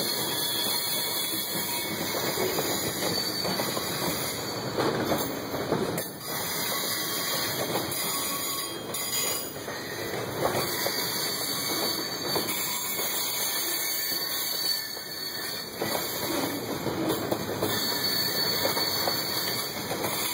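Freight train boxcars rolling steadily past on a curve: a continuous rumble of steel wheels on rail, with scattered clicks and a high wheel squeal from the curve.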